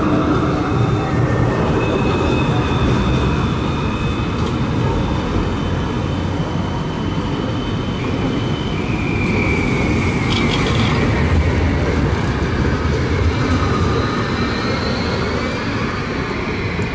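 CAF Urbos 3 low-floor tram approaching and passing close by, its wheels rumbling on the rails. A high electric whine falls in pitch about nine seconds in and rises again near the end.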